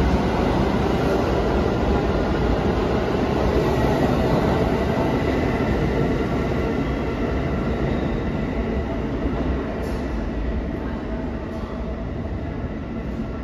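NYC Subway refuse train of R42 cars rumbling along the rails as it pulls out of the station. The steady rumble fades gradually over the second half as the train draws away.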